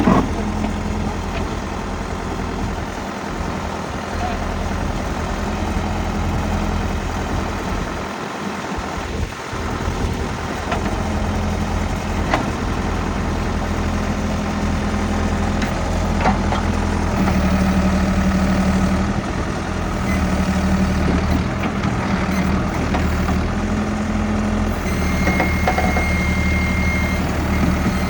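1996 Ford 555D backhoe's diesel engine running steadily, its note picking up somewhat about two-thirds of the way through. A steady high-pitched beep sounds near the end.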